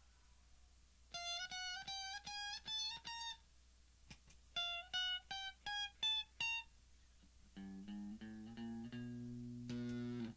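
Electric guitar played through an octave fuzz pedal, gritty and rich in overtones. A short run of high picked notes climbs upward and is played twice, then lower notes ring on from about seven seconds in.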